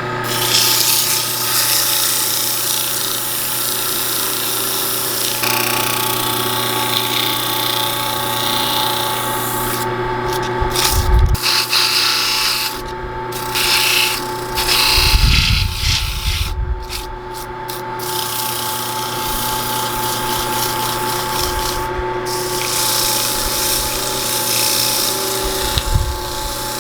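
Wood lathe running with a steady motor hum while a tool scrapes against the spinning cedar bowl; the scraping stops briefly several times as the tool comes off the wood, with a few low bumps.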